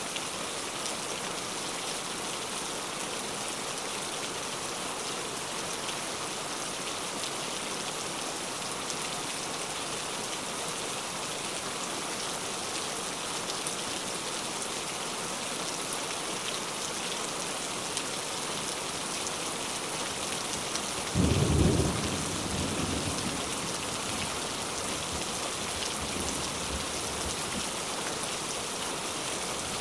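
Steady rain, with one sudden loud clap of thunder about two-thirds of the way in that rumbles away over several seconds.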